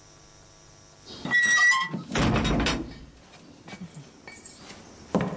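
A heavy iron-banded wooden door squeals on its hinges, then shuts with a loud heavy thud. A few soft knocks follow.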